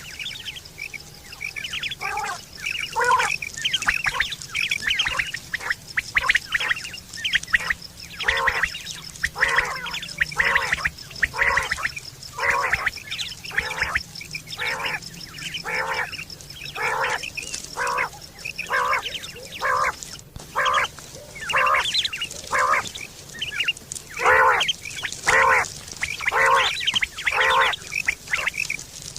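Quail calling over and over in a quick run of short pitched notes, about one to two a second: the quail call used to lure birds for hunting.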